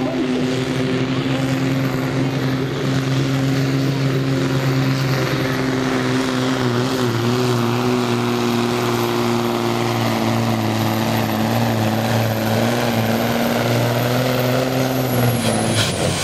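A DAF pulling truck's diesel engine running hard and steady under full load as it drags a truck-pulling sled, its note dipping slightly now and then. The engine note drops away near the end as the pull stops.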